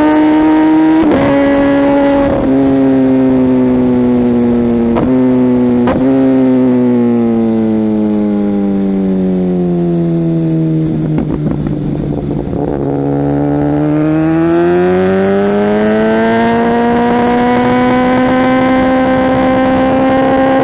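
Kawasaki ZX-10R inline-four running through a Mivv aftermarket exhaust while riding: a few quick gear changes in the first six seconds, then the revs fall away for several seconds, hold low briefly, and climb steadily again as it accelerates.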